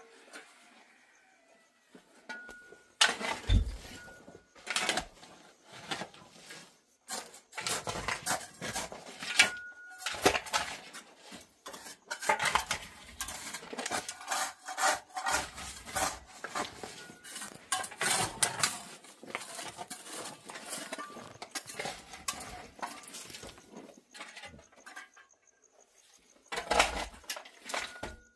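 Irregular clattering and clinking of hard objects being handled, dense through most of the stretch, with a heavier knock a few seconds in.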